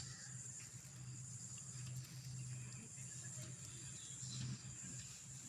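Faint, steady high-pitched insect chirring over a low steady hum.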